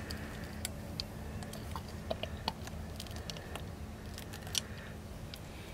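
Scattered small metallic clicks and taps of pliers working at a hook lodged in a catfish's head, with a louder click about two and a half seconds in and another near the end. A steady low hum runs underneath.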